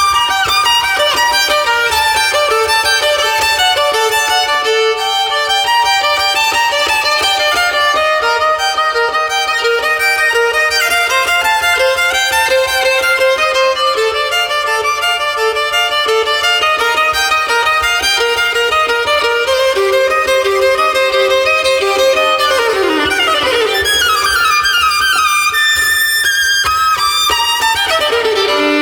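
Solo violin playing a fast passage of many quick notes, with a rapid downward sweep in pitch late in the passage.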